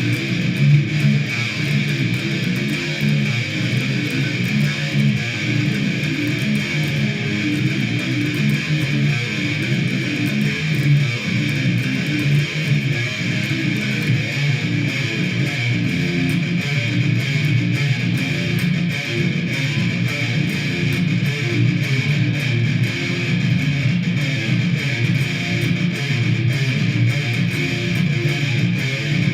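Guitar music: a demo song, strummed and plucked guitars with bass, playing steadily.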